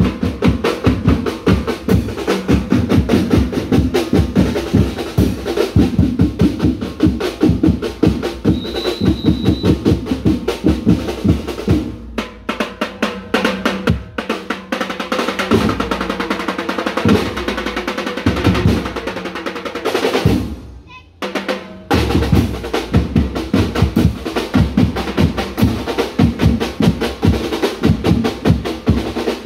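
Marching drum band playing a cadence on snare drums, bass drums and clashed cymbals, a dense run of drum strikes. The drumming breaks off briefly about two-thirds of the way through, then starts again.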